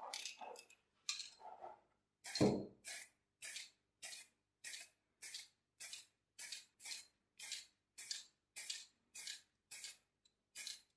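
Aerosol spray can of white primer hissing in short, even bursts, about one every 0.6 seconds, starting about two seconds in with the loudest burst. A few irregular handling noises from the can come before the spraying.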